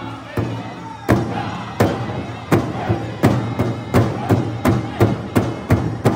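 Powwow big drum struck in unison by a group of drummers, with men and women singing an intertribal song over it. The beat comes about every 0.7 s and then quickens to about three strokes a second around three seconds in.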